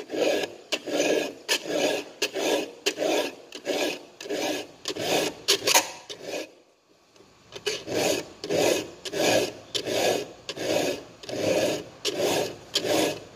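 A file rasping back and forth across a semi-chisel chainsaw chain cutter tooth in steady, even strokes, about one and a half a second, with a pause of about a second midway. The tooth's top-plate angle is being filed back to the guideline after the damaged cutter was squared off.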